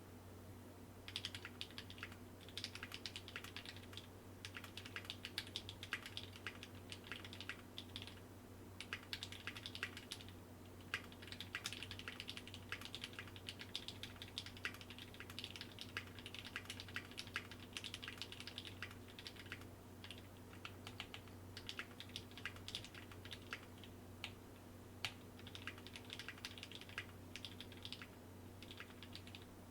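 Fast typing on a Tofu60 custom mechanical keyboard with lubed NovelKey Cream linear switches, GMK keycaps and a brass plate in a Sorbothane-filled case. The keystrokes begin about a second in and come in quick irregular runs with short pauses.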